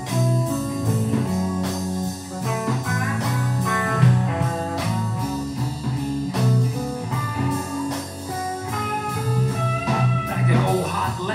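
Blues-rock band playing an instrumental break: lead electric guitar lines over bass and a steady drum beat.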